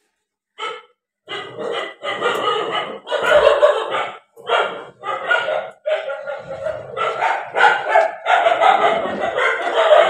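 A dog barking over and over in loud, closely spaced bursts, starting about half a second in and going on throughout.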